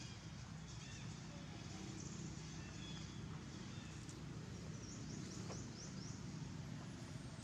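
Steady low background rumble with faint, high, short chirping calls from a small animal or bird, including a quick run of about six rising chirps about five seconds in.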